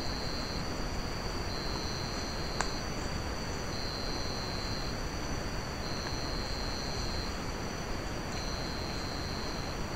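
Night insects, crickets or similar, trilling in steady high-pitched tones over a constant hiss. One faint click about two and a half seconds in.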